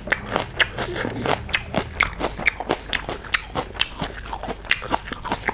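A person chewing a mouthful of food close to the microphone, with wet smacking clicks about four a second.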